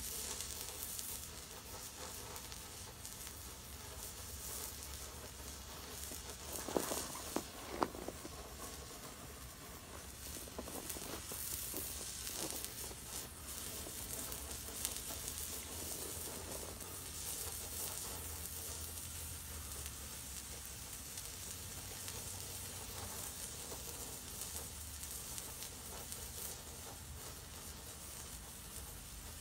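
Homemade white flare of potassium nitrate, sulfur and flake aluminium burning with a steady hiss, with a few sharp crackles about seven seconds in.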